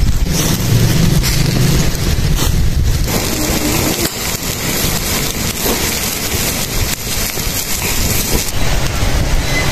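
A steady, loud hiss and crackle of chicken fat and juices sizzling on the hot charcoal under the spit-roasting chickens, over a low rumble.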